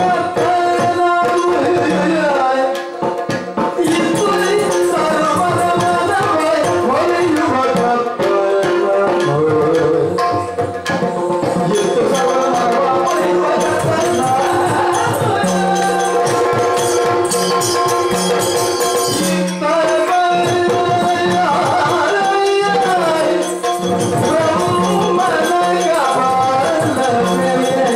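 Yakshagana ensemble music: the bhagavata's sung verse over a steady drone, with chende and maddale drumming and the jingle of the dancers' ankle bells.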